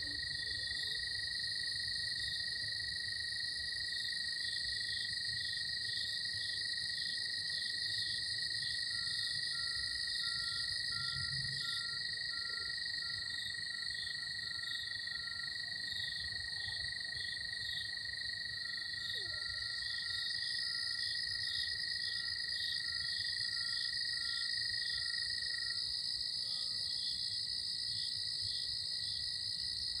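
A night chorus of cicadas and crickets: steady, overlapping high trills and buzzing with a fast pulsing chirp beneath them. Through the middle, a faint electronic beeping comes in twice for several seconds at about two beeps a second, which the recordist takes for a distant car alarm.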